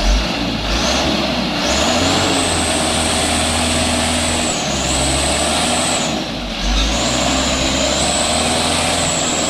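Heavily loaded coal truck's diesel engine pulling hard on a climb, with a steady high whistle over the engine that dips briefly about halfway and drops out for a moment about six seconds in before coming back.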